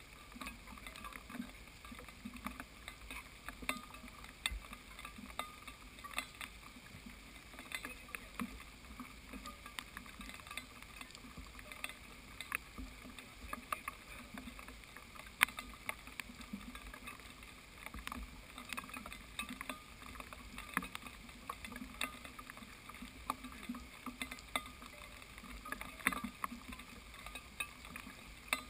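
Rain: irregular sharp ticks of water drops striking the camera housing, several a second, over a faint steady hiss.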